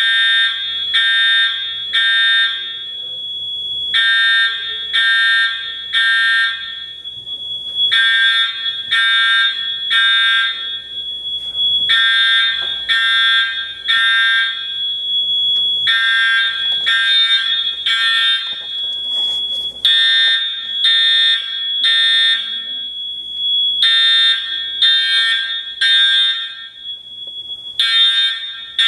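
Building fire alarm sounding in the temporal-three evacuation pattern: three blasts, then a pause, repeating about every four seconds, over a steady high-pitched tone.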